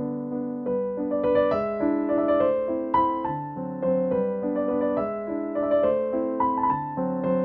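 Background piano music: a gentle melody of single notes over held chords.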